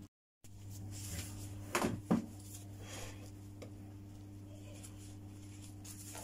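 Two quick knocks about a third of a second apart, roughly two seconds in, over a steady low hum.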